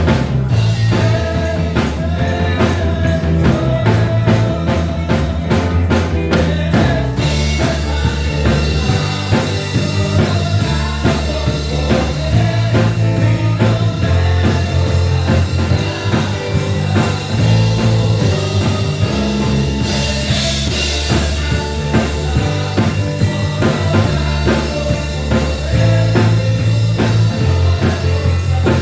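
Band music with drum kit, bass guitar and guitar playing a steady beat; cymbals come in about seven seconds in.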